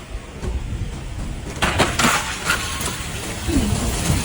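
Wind buffeting the microphone as a low rumble, with a run of sharp clicks and clatters starting about a second and a half in.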